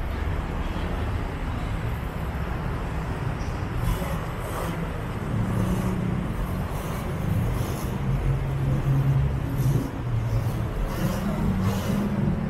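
Road traffic on a busy city street: a steady rumble of vehicle engines, with a low engine drone coming in about five seconds in.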